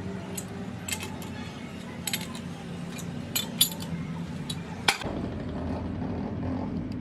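Metal parts clinking and knocking against each other now and then over a steady workshop machine hum. About five seconds in, the sound changes abruptly to a plain, steady machine hum with no clinks.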